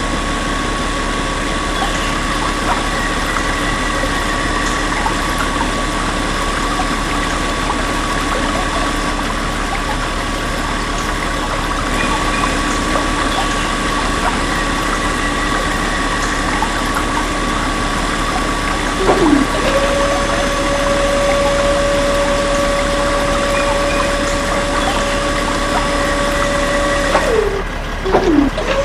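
Small electric motors of a DIY model borewell drilling rig and mini water pump running with a steady whine. About two-thirds of the way through, a second, lower steady whine joins in after a couple of brief downward-sliding sounds.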